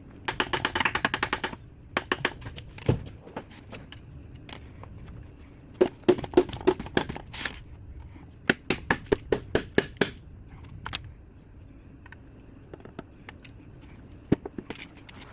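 Several bursts of rapid mechanical clicking as a wrench tool loosens the bolts holding the halves of a Subaru EJ25 engine block together. The densest and loudest run comes in the first second and a half, with more bursts midway and single clicks between.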